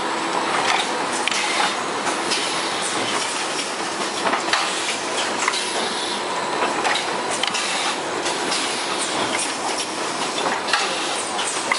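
Automatic welding-wire spool packaging line running: a steady mechanical rattle of conveyors and drives with frequent, irregular clicks and clacks as the spools move along the rollers and guides.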